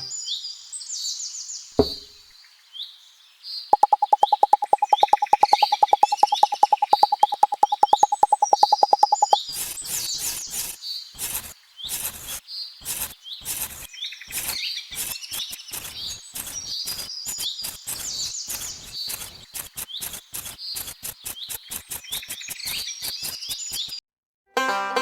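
Small birds chirping and twittering steadily. A fast, loud pulsing tone, about ten pulses a second, runs from about four to nine seconds in, and irregular clicks and taps follow.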